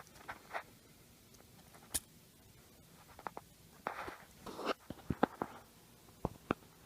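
Scattered light clicks, taps and short scraping rustles of an opened iPhone and its aftermarket screen being handled, with a cluster of them a little past the middle.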